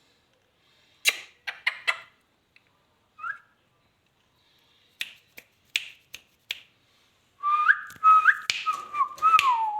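Indian ringneck parrot making sharp clicks and short chirps, then near the end a wavering whistle that steps up in pitch and slides down, with more clicks over it.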